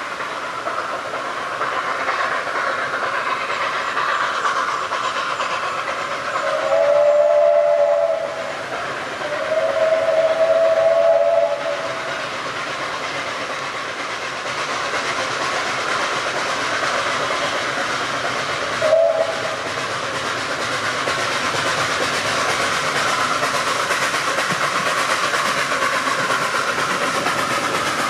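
Narrow-gauge Garratt steam locomotive NG/G16 No. 87 working a passenger train, over the steady noise of the train running. It sounds its chime whistle in two long blasts about a quarter and a third of the way in, then gives one short toot later on.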